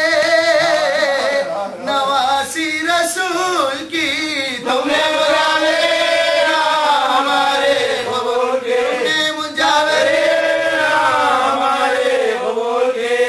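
A man chanting an Urdu noha, a Shia mourning lament of farewell to Husain, in long held melodic lines with brief pauses for breath.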